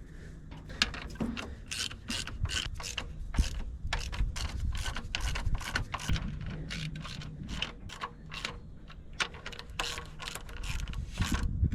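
Hand ratchet wrench clicking in irregular runs of quick strokes, with short pauses between.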